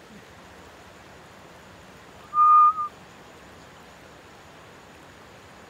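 A single steady whistled note, about half a second long, some two and a half seconds in, over a steady background hiss.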